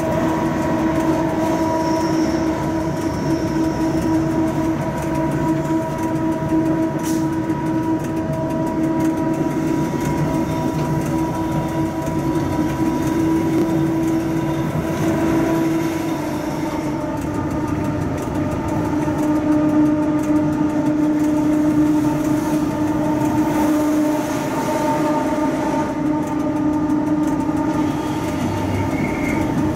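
Inside the cab of a Ge 6/6 II electric locomotive hauling a freight train on narrow-gauge track: a steady whine from the running gear over the rumble of the wheels on the rails. The whine's pitch shifts slightly lower a little past halfway and stays there.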